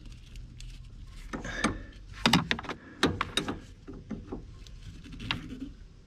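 Scattered sharp clicks and knocks of brass propane fittings being handled as a flared gas line is reconnected, in a quick run around two to three seconds in and once more near the end.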